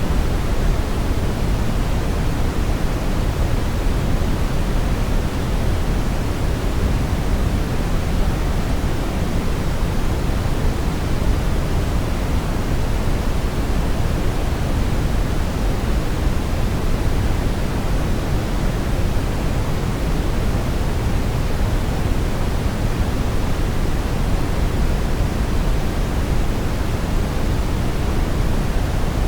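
Synthetic brown noise: a steady, deep rushing hiss, strongest in the low end and tapering off toward the highs, with no changes.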